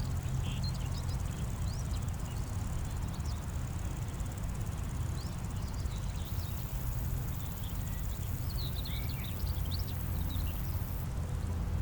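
Summer grassland ambience: grasshoppers and crickets stridulating, a thin high buzz that grows much stronger from about six seconds in and drops back near the end. Short high chirps come and go over a steady low rumble.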